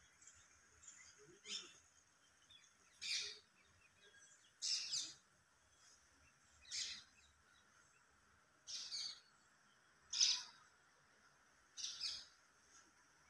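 A bird calling over and over: seven short, high calls, one about every second and a half to two seconds, over a faint steady background hiss.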